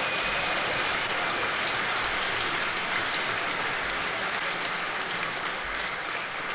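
Audience applause: a crowd clapping steadily, starting to die away near the end.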